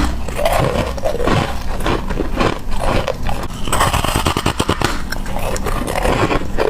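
A person biting and chewing ice close to the microphone: a dense run of crunching and cracking.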